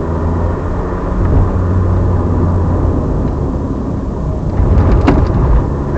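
Alpine A310's 2.7-litre V6 running hard under load, heard from inside the car, with tyre and road noise underneath. It gets a little louder near the end, and there is a sharp knock about five seconds in.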